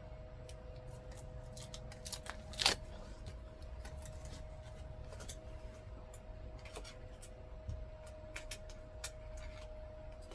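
Hand work with tape and scissors: scattered small clicks, snips and crinkles as pieces of tape are pulled and cut, with one louder snip or rip between two and three seconds in. A steady hum runs underneath.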